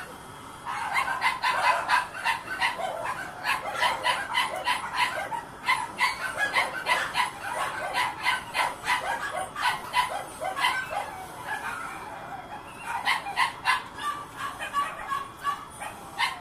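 A dog barking over and over in quick, yipping barks, several a second, with a short break about twelve seconds in.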